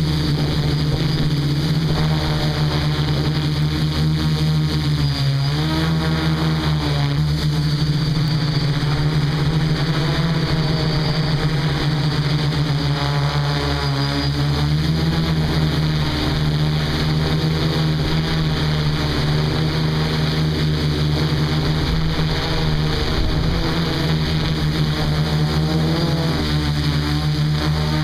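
DJI F450 quadcopter's four electric motors and propellers running, heard from the camera on board: a loud, steady buzzing hum whose pitch slides up and down a few times as the motors change speed.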